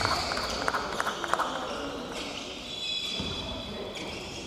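Basketball game sounds on a gym's hardwood court: a few sharp knocks of the ball bouncing and scattered claps in the first second or so, then faint high squeaks of sneakers on the floor.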